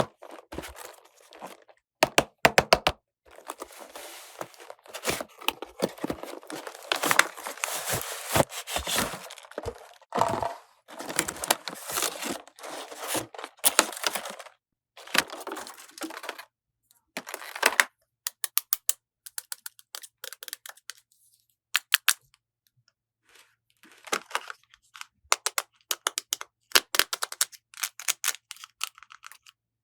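Plastic packaging crinkling and tearing for about ten seconds, then sharp clicks and taps of small plastic toy pieces being handled.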